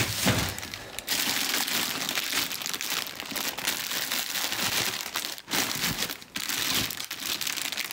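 Clear plastic bags crinkling steadily as hands rummage through a box of bagged clothes and shoes, with two brief pauses near the end.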